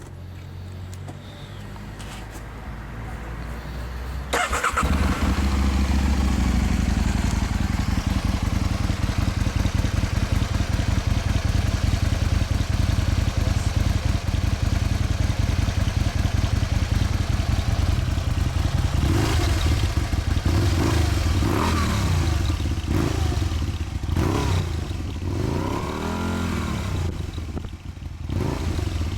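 Aprilia Tuono's V-twin engine through a Leovince aftermarket exhaust with its baffles in, catching about four seconds in and settling to a steady idle. From about twenty seconds in it is revved several times in quick blips that rise and fall.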